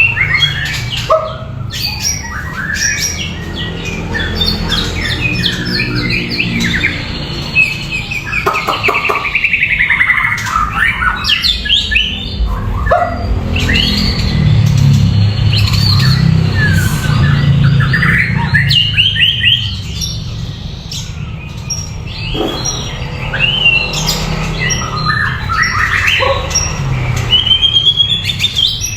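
White-rumped shama singing a long, varied song of clear whistles, rapid trills and chattering phrases, with a steady low rumble underneath.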